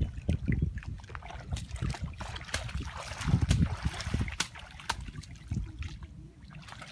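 A hoe chopping into wet mud and shallow water, irregular splashing thuds, with feet sloshing through the water.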